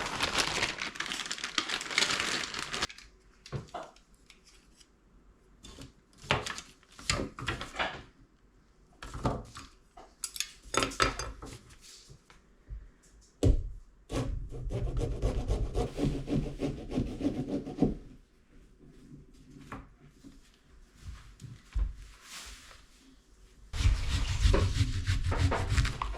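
Pumpkin being carved: a knife sawing and scraping through the pumpkin's shell in separate strokes, with scattered knocks, and a longer spell of rasping in the middle and near the end.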